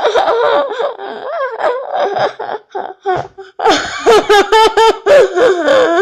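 Girls laughing hard, in quick repeated high-pitched ha-ha pulses, dipping in the middle and loudest in the second half.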